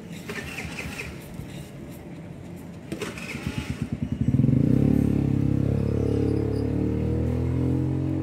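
A motor engine starting: a quickening run of pulses about three seconds in, then the engine catches and runs steadily and loudly.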